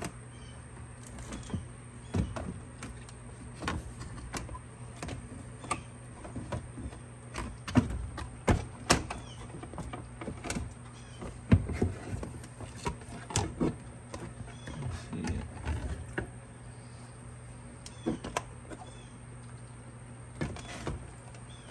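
Hands working plastic push pins and a plastic coolant reservoir loose from an ATV's plastic shroud: irregular clicks, knocks and scrapes of plastic on plastic, with a steady low hum behind.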